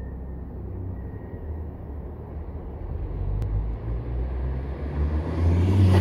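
Ford Focus ST225's turbocharged five-cylinder engine on a drive-by, growing steadily louder as the car approaches and peaking as it passes close near the end.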